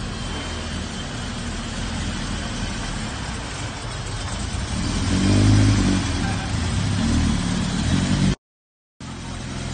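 Honda Civic's B20 non-VTEC four-cylinder, with header and 2.5-inch exhaust, running at low revs as the car creeps along, swelling with a light blip of throttle about five seconds in. It cuts off abruptly a little after eight seconds and comes back at a lower level just before the end.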